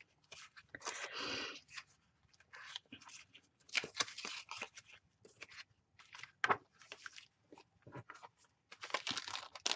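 Paper and card being handled: scattered rustles, slides and light taps as craft papers, tags and an envelope are gathered and stacked by hand, with a denser flurry of rustling near the end.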